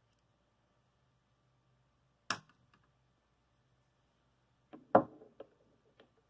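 A sharp single click, then about two and a half seconds later a louder knock followed by a few light taps as a solid turned aluminium ball is set down on a mat among other aluminium balls.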